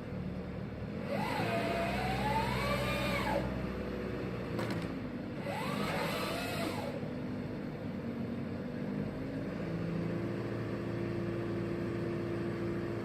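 The Dorfmeister GS620 felling head's saw chain runs in two bursts, about a second in and again near the middle, its pitch sagging and rising as it bites and frees. The carrier machine's engine runs steadily underneath, and a short sharp click falls between the two bursts.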